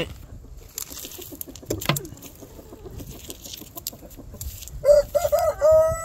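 Chickens clucking softly, then a rooster crows near the end: a few short notes leading into one long held note.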